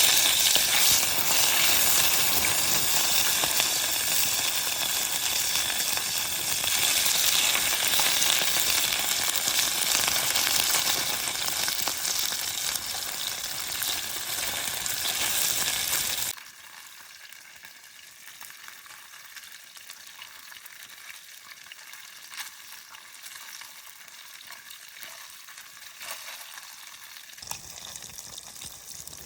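Food frying in hot oil with a loud, steady sizzle for about sixteen seconds, then a sudden drop to a much quieter, thinner hiss.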